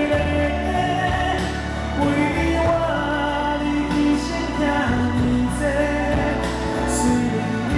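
A live pop band plays through a concert sound system while a male singer sings long held notes over it.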